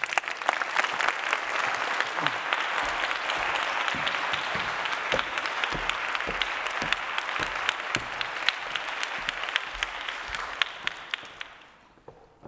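Audience applauding, a dense spatter of many hands clapping that fades out near the end.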